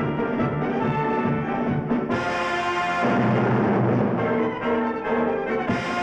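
Orchestral cartoon score led by brass, getting louder about three seconds in, with crashes about two seconds in and again near the end.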